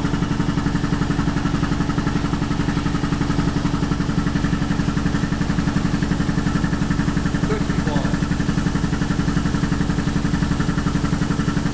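Ingersoll Rand 15T2 three-stage piston air compressor pump, driven by an electric motor, running steadily under load with a fast, even pulsing chug as it pumps up a test tank.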